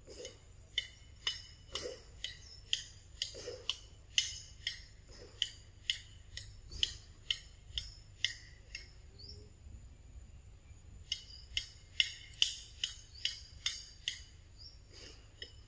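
Young macaque chewing ripe mango with wet smacking: a run of sharp mouth clicks about two a second, pausing for a couple of seconds midway and then starting again.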